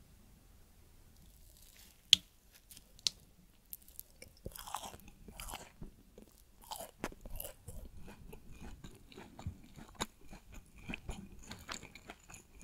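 Close-up chewing of a lamington, a sponge cake coated in chocolate icing and shredded coconut: soft crunching with many small clicks, starting about two seconds in with one sharp, loud click.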